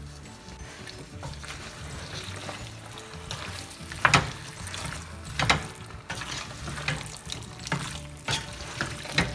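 A spatula stirring a thick cooked vegetable and lentil mash in a stainless steel pot over a faint sizzle. From about four seconds in it scrapes or knocks against the pot about six times, the first two the loudest.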